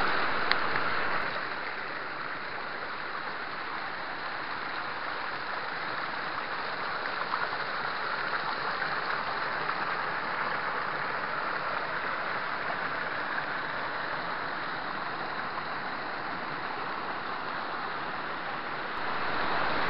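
Waterfall rushing steadily: an even, unbroken roar of white water.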